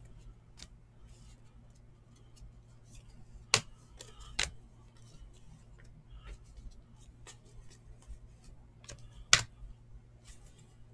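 A stack of glossy foil trading cards handled and flipped through by hand: scattered light clicks and slides, with a few sharper snaps, two about three and a half and four and a half seconds in and another near the end, over a faint low hum.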